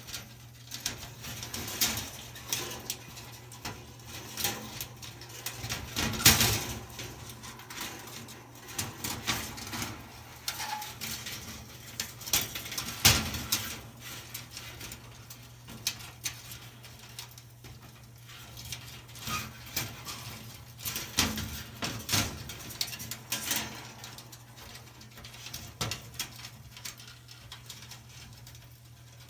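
Irregular clicks, rattles and scrapes as an electric dryer's burnt-out coiled heating-element wire is pulled out of its porcelain insulators by hand, over a steady low hum.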